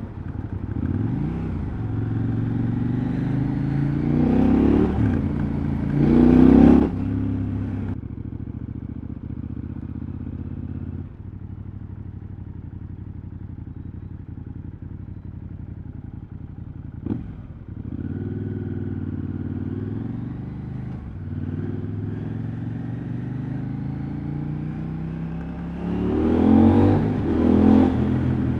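KTM 790 Adventure's parallel-twin engine running under riding, heard through its exhaust. It rises in pitch through the gears to a loud peak about six seconds in, then runs more quietly at lower revs. A sharp click comes about seventeen seconds in, and it accelerates hard again near the end.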